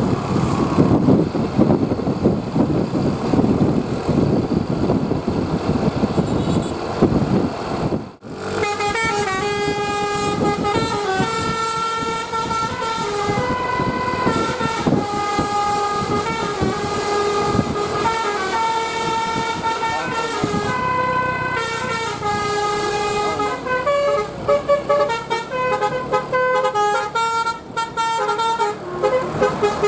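Telolet basuri musical bus horn playing a tune in clear stepped notes, some held and some quick, starting abruptly about eight seconds in. Before it comes a loud rumbling noise.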